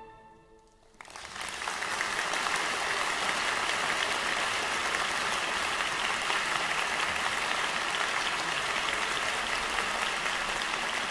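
The last chord of a string orchestra dies away in the hall, and about a second in the concert audience breaks into applause that goes on steadily.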